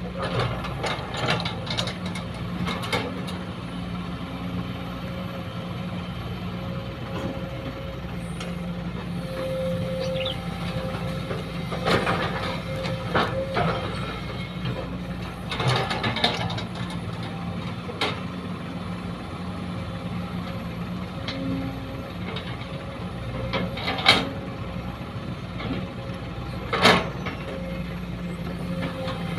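Sumitomo hydraulic excavator's diesel engine running steadily as it digs and loads a dump truck. Several sharp clunks and knocks, the loudest about 24 and 27 seconds in, from rock and soil dropping and the bucket working.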